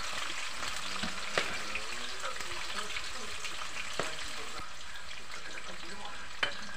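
Small whole fish frying in hot oil in a metal wok: a steady sizzle, broken three times by a sharp click or pop.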